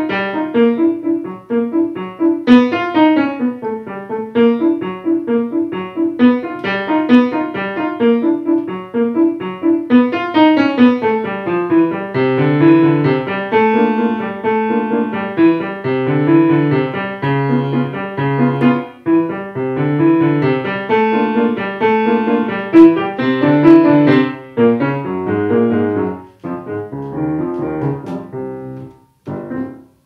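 Grand piano played solo: a busy stream of quick notes and chords that thins out near the end and stops just before the close, as the piece finishes.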